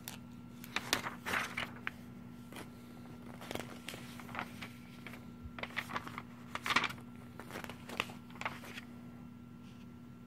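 Comic book pages being turned and handled: paper rustling and crinkling in short irregular bursts, loudest about two-thirds of the way through, over a faint steady hum.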